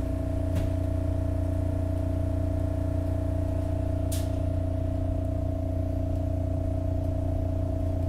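Steady electric hum inside a SEPTA Market–Frankford Line train car: a strong low drone with two steady higher tones over it. A faint click comes about half a second in and a sharper, hissier one about four seconds in.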